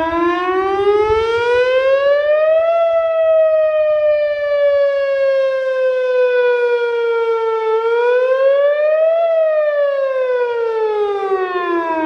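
Whelen WPS-2802 electronic outdoor warning siren sounding a pitched tone with strong overtones. It starts abruptly, rises over about three seconds, sags slowly for about five seconds, rises again briefly, then falls back down near the end.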